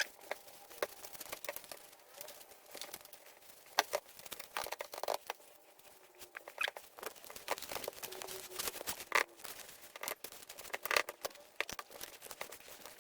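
Hand mixing of cookie dough in a bowl: irregular scrapes and light knocks of a utensil against the bowl as the flour is worked in.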